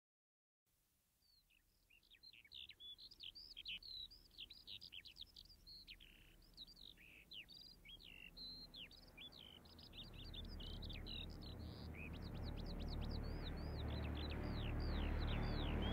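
Small birds chirping, many quick descending chirps in a dense chorus, starting about a second in. From about ten seconds in, a low rumble swells steadily louder beneath them.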